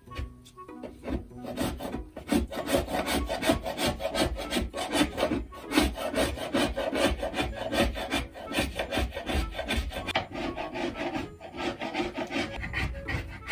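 Metal hand scraper scraping old wallpaper backing off a wall in quick, repeated strokes.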